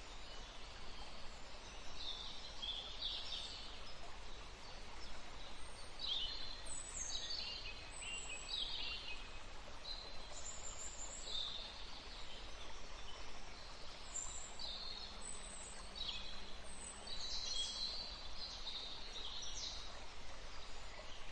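Several birds singing, short chirping and trilling phrases one after another, over a steady background hiss.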